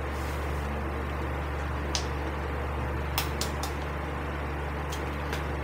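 Steady electrical hum and simmering water from an induction cooker with a pan of cabbage at the boil, with a few light clicks of things being handled.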